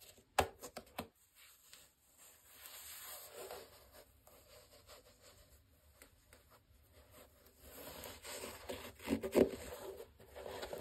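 Cotton-gloved hands handling a Nike JA 1 sneaker: soft rubbing and scraping against its mesh, leather and rubber sole, with a few sharp taps about half a second in and a louder cluster of rubs and knocks near the end.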